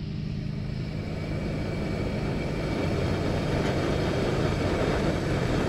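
Propane burner in a homemade ammo-can fire pit burning with a steady rushing hiss of gas flame, slowly growing louder as the flame rises.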